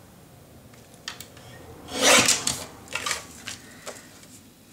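Sliding paper trimmer blade drawn through card stock about two seconds in: a short rasping cut. A few light clicks from handling the trimmer and card come before and after it.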